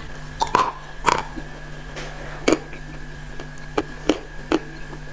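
Sticky, wet clicks and squelches of fingers working thick, creamy clay paste in a glass bowl, sharp pops coming every half second to second or so over a steady low hum.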